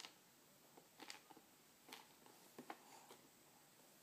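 A handful of faint, scattered taps and clicks from a baby's fingers picking at banana puffs on a plastic high-chair tray.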